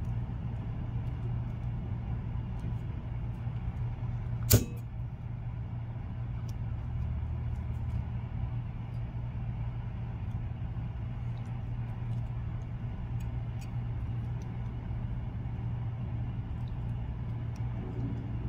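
Steady low background hum, with faint small ticks from hands working a fly on a tying vise and one sharp click about four and a half seconds in.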